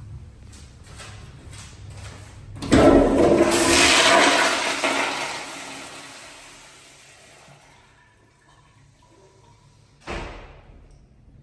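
A restroom plumbing fixture flushing: a sudden loud rush of water that tapers off over about five seconds. A single sharp thump follows near the end.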